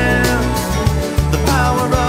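Background music: an instrumental passage of a song, with a melody line over a bass pulse and no vocals.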